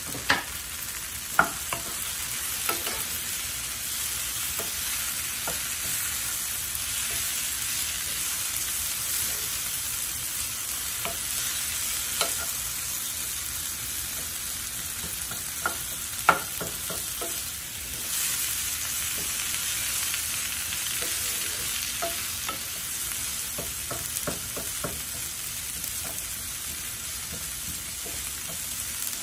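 Coriander leaves, garlic and onion sizzling steadily in mustard oil in a nonstick frying pan, stirred with a wooden spatula that knocks against the pan a few times, most sharply about a second and a half in and again about sixteen seconds in.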